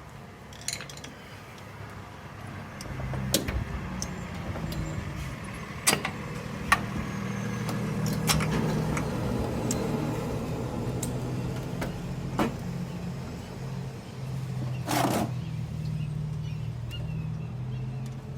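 Scattered clicks and knocks of hands and tools working in a car's engine compartment, over a steady low motor-like hum that swells a few seconds in.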